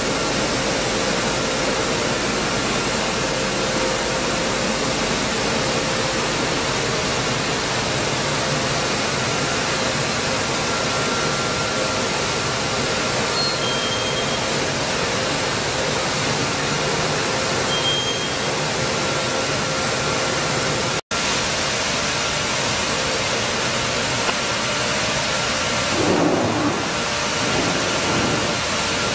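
Dense, steady machinery noise from a running stone flour mill plant, with faint steady hums over it. It cuts out for an instant about three-quarters of the way through.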